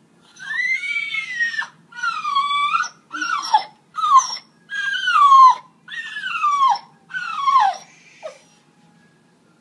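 A dog whining in a run of about eight high, drawn-out cries, each sliding down in pitch at its end, the last one short.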